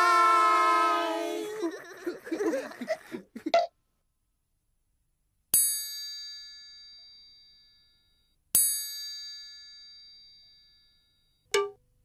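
A high, held pitched sound with many overtones wavers and trails off in the first few seconds. Then a chime is struck twice, about three seconds apart, each strike ringing out and fading over a couple of seconds. A brief short sound comes near the end.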